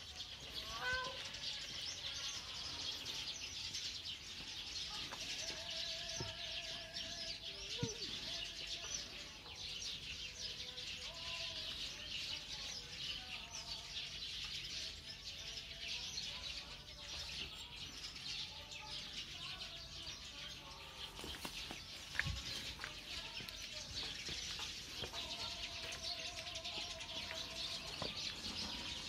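Many birds chirping and twittering without a break, with a lower trilled call about six seconds in and again near the end, and a single short knock a little after twenty-two seconds in.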